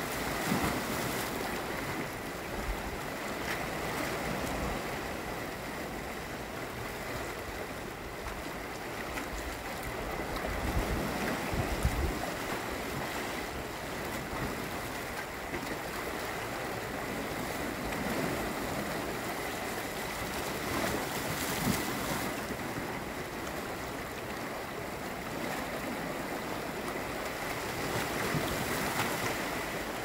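Sea waves washing and splashing against the volcanic rocks of the shore: a steady rushing surf that swells and eases every few seconds.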